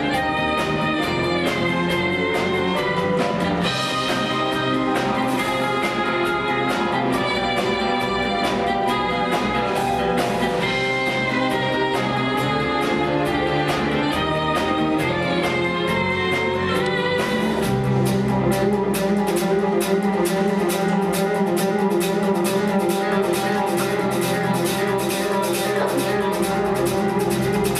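Upbeat show music with brass and a steady beat. About 17 seconds in, the beat becomes denser and more driving.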